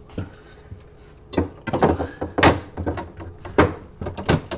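Refrigerator shelf with a plastic frame being fitted back onto its rails inside the fridge: a series of about half a dozen sharp plastic knocks and clicks, the loudest about two and a half seconds in.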